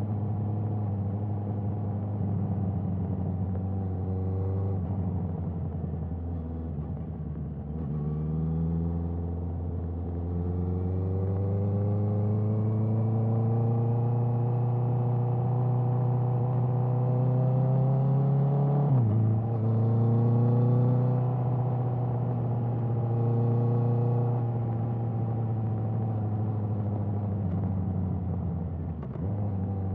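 Honda CBR650R's inline-four engine through an Akrapovic exhaust, under way and pulling steadily, its note slowly climbing. A little past halfway the pitch drops sharply and picks up again, as at a quick-shifter upshift, and it dips briefly once more near the end.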